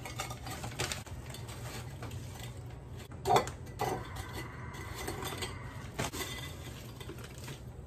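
Stacks of graham crackers being dropped and slid into a large glass jar, knocking and scraping against the glass, with the rustle of the cracker wrapper; a sharp knock a little over three seconds in is the loudest.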